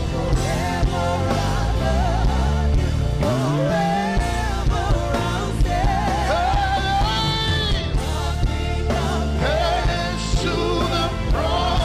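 Live gospel worship band music with a steady drum beat, and held, wavering melody lines sung over it without clear words.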